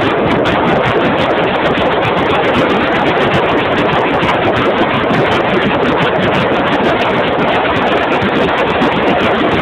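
Steady loud rush of wind on a phone microphone strapped under an Extra 330 aerobatic plane in flight, mixed with the plane's engine and propeller noise.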